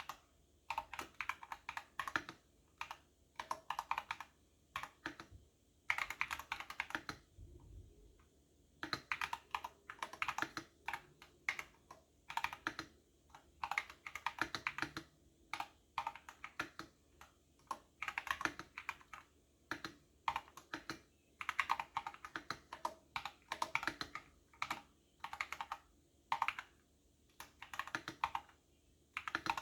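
Computer keyboard being typed on in quick bursts of keystrokes, separated by short pauses.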